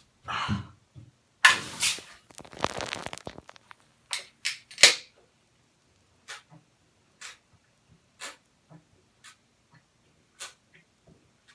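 Aluminium soda can being worked open for shotgunning: a loud sudden burst with about a second of fizzing crackle, then three sharp knocks, followed by faint clicks about once a second.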